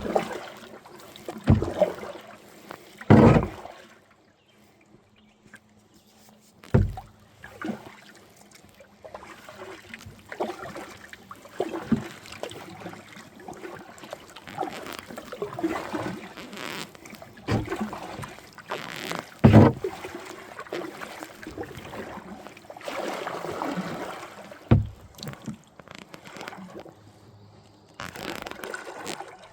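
Kayak paddling on a river: irregular paddle splashes and water sloshing around the hull, broken by several sharp knocks, the loudest about three seconds in and again near the twenty-second mark.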